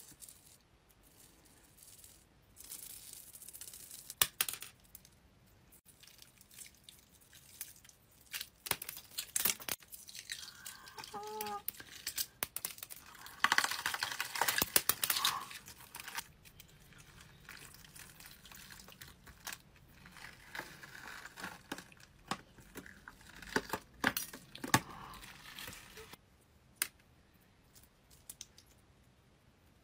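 A latex layer studded with rhinestones being peeled off the scalp, face and neck: bouts of sticky tearing and crackling with many small clicks, loudest around the middle.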